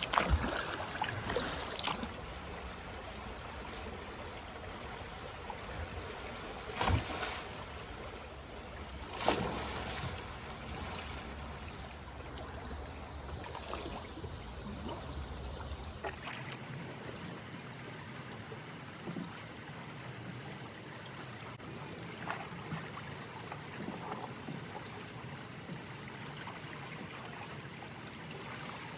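Creek water running over rocks, with a few sharp splashes and knocks as a stuck tree limb is worked loose, the loudest about seven and nine seconds in.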